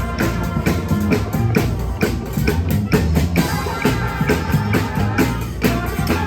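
Street brass band playing, with drums keeping a steady beat under sustained horn notes.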